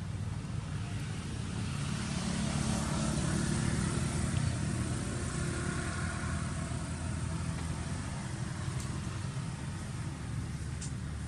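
Low engine rumble of a motor vehicle passing by, swelling over the first few seconds and easing off again.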